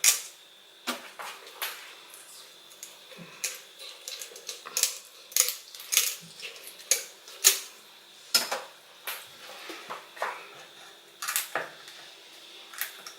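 Irregular sharp clicks and knocks of a metal blade cutting through a large fish's tough backbone and fins, knocking against the work surface and dish.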